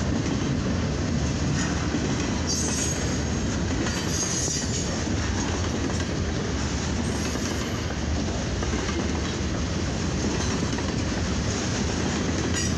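Freight cars of a mixed freight train rolling past at a grade crossing: a steady rumble of steel wheels on the rails, with short high wheel squeals a few times.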